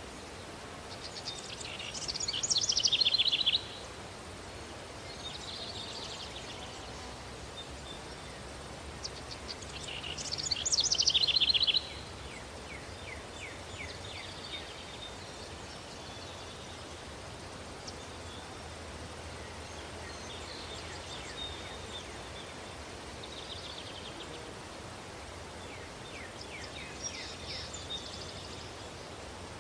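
Countryside daytime ambience: a steady breeze hiss with birds and insects calling. Twice a loud high trilling call swells and then cuts off sharply, about a second in and again about ten seconds in, with fainter calls later.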